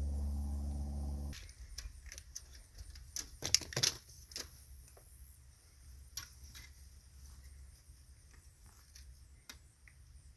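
A steady machine hum cuts off about a second and a half in. Scattered clinks and clanks of steel pieces being handled follow, loudest around three and a half to four seconds in.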